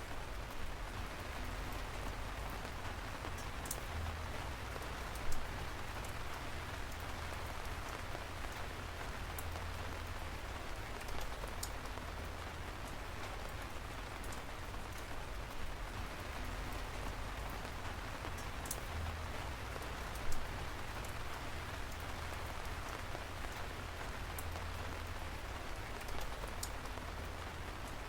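Steady rain falling, an even hiss with a sharper, louder drop hitting close by every few seconds.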